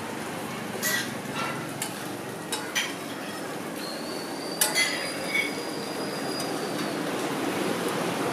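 Scattered sharp metal clinks and taps of cooking utensils, about eight in all, over a steady background hiss. A faint high ringing tone holds for about three seconds in the middle.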